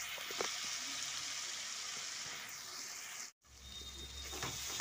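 Wet spice masala (ginger paste with cumin, coriander, turmeric and chilli powder) sizzling and frying in oil in a pot, with a few light clicks. The sound cuts out completely for a moment about three and a half seconds in, then the frying continues.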